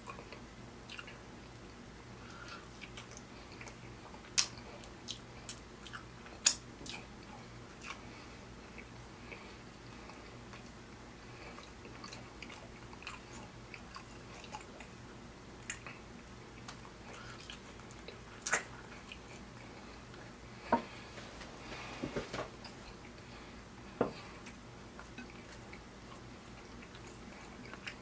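Close-up mouth sounds of a man eating pressure-cooked ribeye steak by hand: scattered wet smacks and clicks of chewing, about eight sharp ones spread out, over a faint steady low hum.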